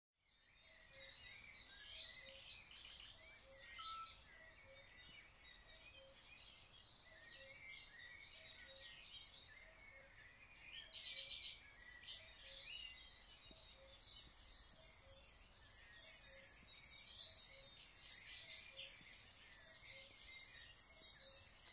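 Outdoor ambience of many songbirds chirping and calling, with louder flurries of calls about two, eleven and eighteen seconds in; a steady high hiss comes in about halfway.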